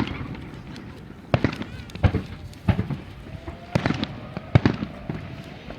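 Aerial fireworks shells bursting, five separate bangs about half a second to a second apart.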